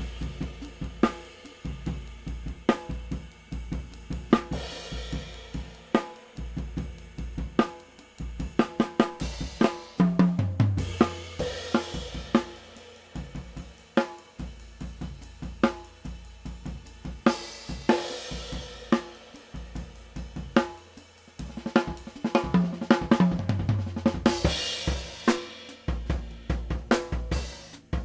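Acoustic drum kit played with sticks: a steady groove of snare, bass drum and hi-hat strikes with swells of ringing cymbal wash, heard through ribbon overhead microphones (a pair of Coles 4038s, then a NUDE stereo ribbon microphone).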